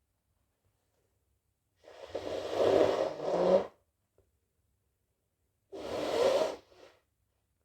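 A person's nose and mouth letting out two loud, breathy bursts of air. The first comes in two pushes about two seconds in; the second starts suddenly about three seconds later and tails off.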